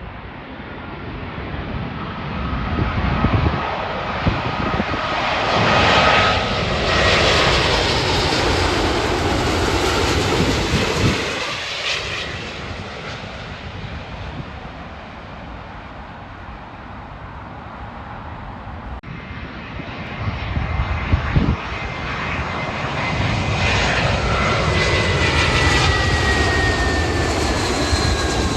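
Jet airliners passing near the airport, two in turn: each rises to a loud engine rush with a whine that falls slowly in pitch as it goes by. The first fades about halfway through, and the second builds toward the end.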